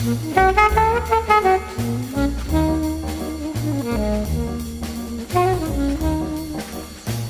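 Background music: a jazzy tune with brass-like melody over a steady bass beat.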